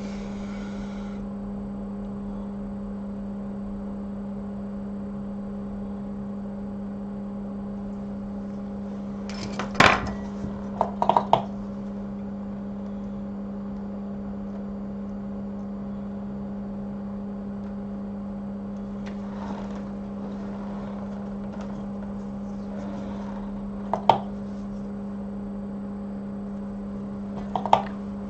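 Steady electrical hum of bench equipment, with a few sharp, light metallic clicks of small tools on the work. There is a cluster of clicks about ten seconds in, another click about two-thirds of the way through, and one near the end.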